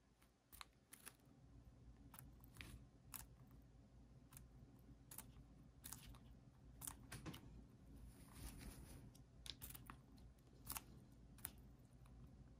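Serama bantam roosters pecking at and tearing napa cabbage leaves: faint, irregular beak clicks and crunches, about one or two a second.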